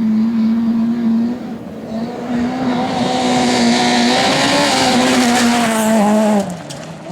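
Rally car engine held at high, nearly constant revs, with two brief lifts and a fall-off near the end. A hiss of tyre noise rises through the middle.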